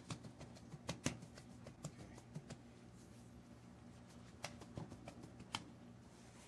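Faint handling noises: a few light clicks and taps as gloved hands press sand mix into a rubber mold and lay a stick across it, over a steady low hum.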